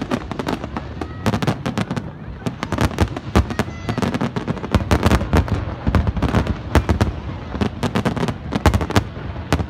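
Fireworks display: a rapid, irregular barrage of shell bursts and crackling reports, several bangs a second throughout.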